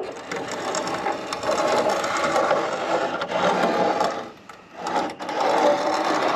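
Reciprocating saw (Sawzall) cutting a sheet-metal street sign, running in two stretches with a short break about four and a half seconds in.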